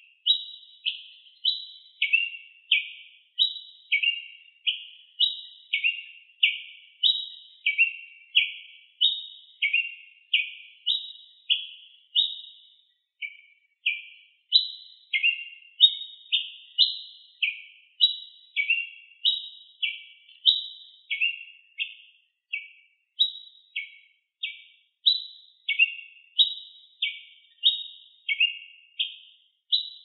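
Tiê-preto (ruby-crowned tanager) singing a long, repetitive song of short chirping notes, about two a second, alternating higher and lower, with one brief pause about thirteen seconds in.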